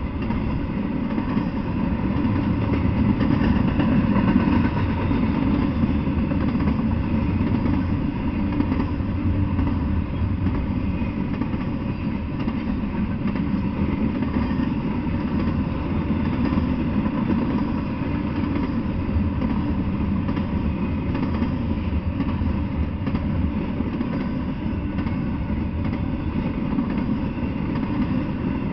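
Double-stack intermodal freight train rolling past: a steady rumble of steel wheels on rail, without letup.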